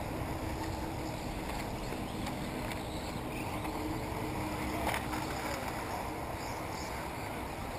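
Steady low rumble of wind on the microphone, with a single short click about five seconds in.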